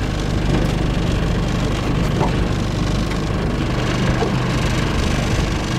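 Boat engine idling with a steady low hum while the longline is hauled.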